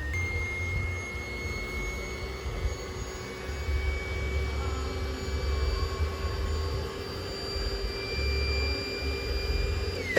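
Jet aircraft passing overhead: a steady engine whine that creeps slightly higher in pitch, then drops sharply in pitch near the end as it goes past. Wind buffets the microphone throughout.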